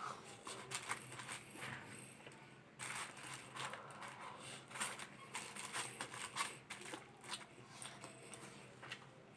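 A person eating fried chicken fillet: faint, irregular chewing and mouth clicks with small crackles.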